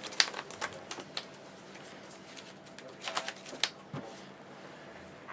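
Trading cards being shuffled and handled, making quick crisp clicks in two bunches, about a second in and again around three seconds, with a soft low thump near four seconds.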